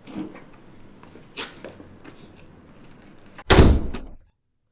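A few faint knocks, then one loud bang about three and a half seconds in, after which the sound cuts off to silence.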